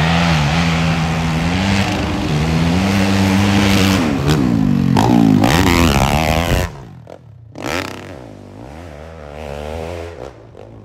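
450cc-class dirt bike engine at full throttle climbing a steep dirt hill, the revs holding and stepping up in turn. About two-thirds of the way through it drops off sharply and runs on much quieter, its revs wavering.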